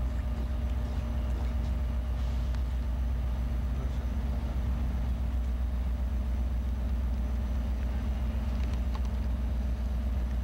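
EMD F40PH-2 diesel locomotive idling: the steady low drone of its 16-cylinder two-stroke engine, with an even hum over it.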